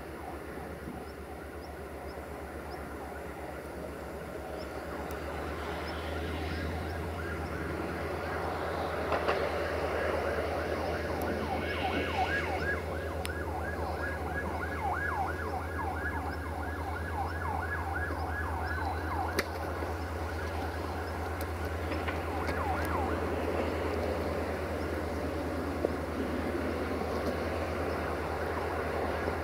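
Diesel train engine running at the station, a steady low hum that grows louder a few seconds in. From about 9 to 23 seconds a fast, regularly pulsing whine runs over it.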